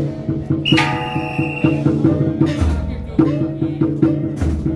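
Traditional drum-and-gong percussion accompanying a dragon dance: quick, evenly repeating strikes with ringing metal tones, and a couple of deep drum booms.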